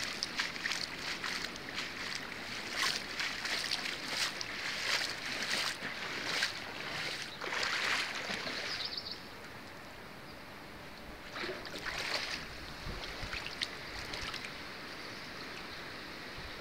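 Splashing and sloshing in shallow muddy floodwater, irregular splashes for the first nine seconds or so, then quieter with a few more splashes a little later.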